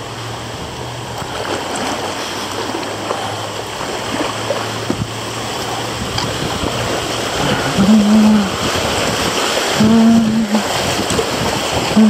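River water rushing steadily over shallow riffles. A low steady hum lies under it and stops about seven seconds in. A person hums two short notes near the end.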